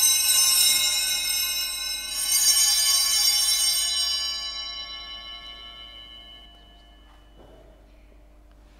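Altar bells rung for the elevation of the chalice at the consecration: a bright, high, many-toned ringing, struck again about two seconds in, then fading away over several seconds.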